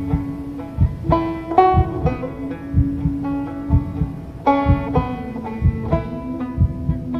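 Slow banjo picking: plucked notes ringing out one after another over a held low note, with a soft low pulse about twice a second.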